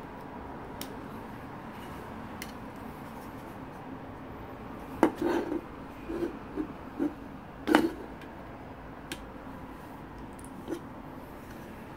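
A USB-C hub's cable and plugs being handled and pushed into a laptop's port on a desk: a few light clicks, then a cluster of knocks and rattles around the middle, the loudest a sharp click near its end, over a steady low hum.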